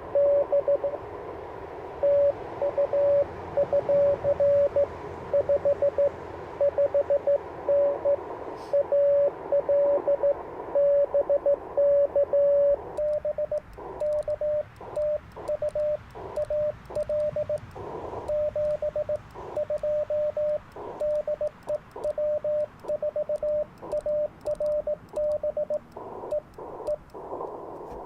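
Morse code (CW) on an Icom IC-705: a tone near 600 Hz keyed in dots and dashes over band hiss, louder in the first half. In the second half the hiss cuts in and out between characters, with faint clicks of the paddle key.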